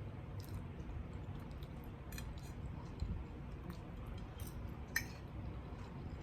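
A person chewing a mouthful of food close to the microphone, with scattered small wet mouth clicks and two sharper ticks about three and five seconds in.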